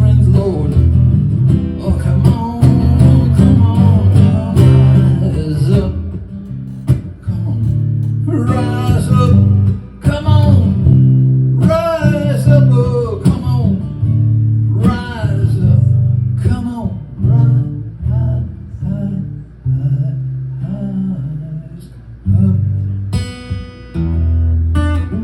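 Acoustic guitar playing an instrumental passage of a song, with chords ringing and a melody line that bends in pitch over them for a few seconds mid-way.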